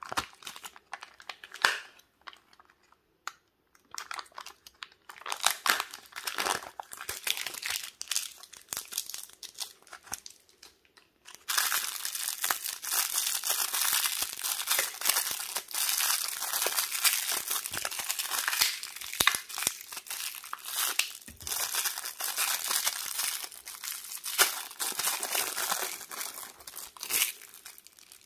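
Foil seals and a clear plastic toy wrapper from Kinder Joy eggs crinkling and tearing as they are peeled open by hand: scattered rustles with pauses at first, then continuous crinkling from about eleven seconds in until near the end.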